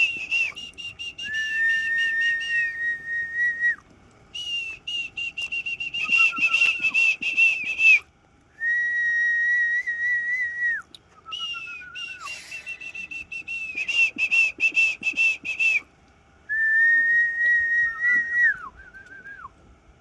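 High-pitched whistling in repeated phrases: fast trilled notes alternate with long held notes, several of which end in a falling glide.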